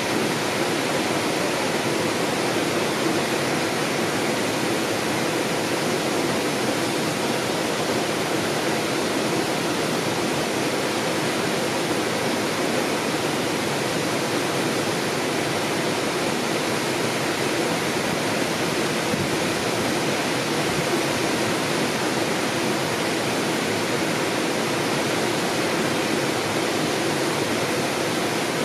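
Steady, unbroken rushing of flowing water, even and unchanging throughout.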